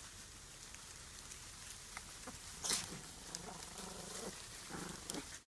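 Piglets grunting softly among rustling straw bedding, with a brief louder noise about two and a half seconds in. The sound cuts off abruptly just before the end.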